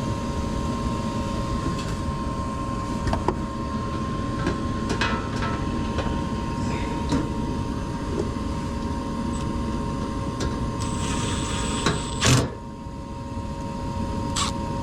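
Small gas furnace running with a steady hum and whir, under scattered clicks and taps of screws and a cabinet panel being handled. A loud knock comes about twelve seconds in, after which the running sound is quieter.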